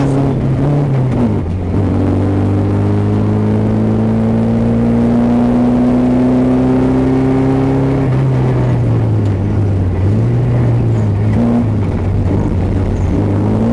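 Car engine heard from inside the cabin while driving: its pitch drops at a gear change about a second and a half in, climbs slowly for several seconds as the car accelerates, then falls back and wavers.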